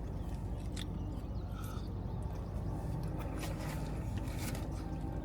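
A person taking a bite of corn cheese and chewing, with scattered small clicks. Under it runs a steady low hum inside a car.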